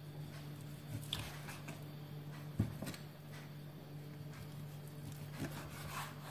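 Kitchen knife slicing thin slices off a raw pork joint on a wooden cutting board: faint strokes through the meat with a few light knocks of the blade on the board, the loudest about two and a half seconds in. A low steady hum runs underneath.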